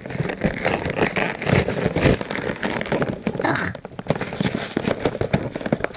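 A Shopkins 12-pack toy package being opened by hand: cardboard and plastic packaging crinkling and rustling, with many irregular small clicks.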